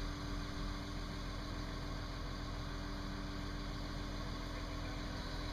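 A mobile crane's diesel engine running steadily during a lift, with a steady hum that comes in about half a second in.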